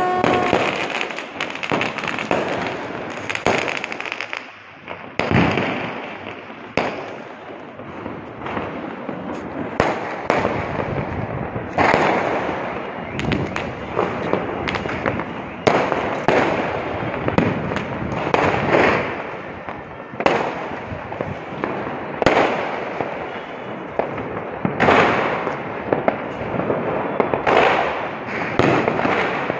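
Fireworks going off, with a dense, continuous crackle and frequent sharp bangs of aerial shells bursting, about one every second or two.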